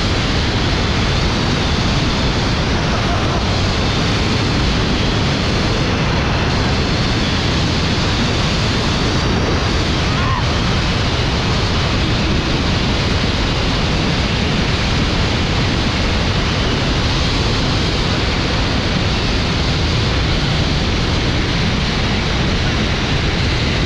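Loud, steady rush of wind over the GoPro 8's microphone during a fast zipline descent at about 120 km/h.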